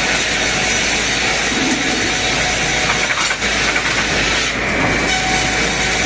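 Perun BG 35-55 log-canting machine running, its circular saws and tracked chain feed making a steady, dense mechanical noise as a log is fed through, with a brief dip a little after three seconds.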